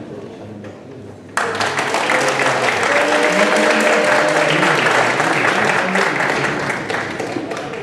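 Theatre audience applauding. The applause breaks out suddenly about a second and a half in, swells, then starts to die down near the end.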